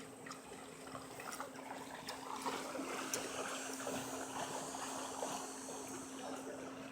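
Creek water flowing and trickling, a busy splashing babble that swells in the middle and eases near the end.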